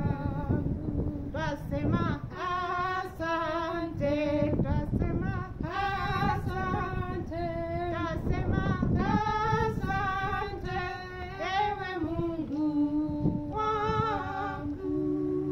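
A woman singing a slow song with vibrato in long held notes, over a quiet instrumental accompaniment. The voice stops near the end, leaving the accompaniment holding a chord.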